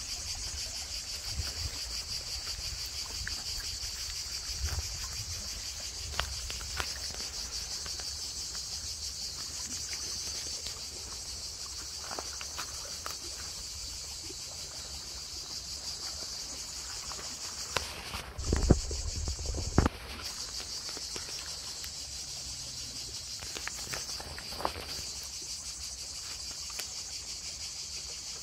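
A steady, high-pitched insect chorus chirring without a break. About two-thirds of the way through comes a short low rumble with a couple of sharp knocks, the loudest moment.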